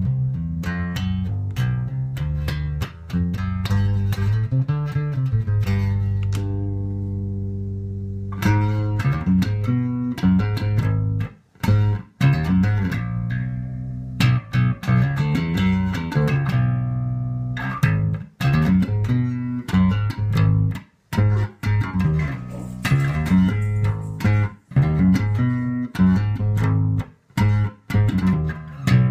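Rickenbacker 4003 electric bass with horseshoe and toaster pickups, played through a Hartke LH1000 amplifier set flat and recorded on an iPhone 5. Runs of plucked notes, one long note left ringing and fading about six seconds in, then quicker phrases broken by short stops.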